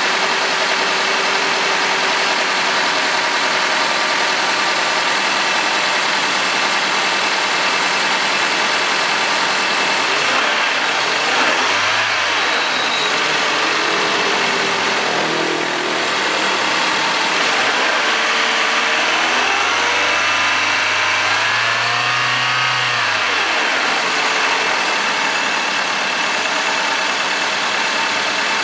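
Toyota Premio 2.0-litre engine idling steadily. The throttle is blipped briefly about 11 seconds in, then held for a longer rev around 19 to 24 seconds in; each time the engine rises in pitch and falls back to idle.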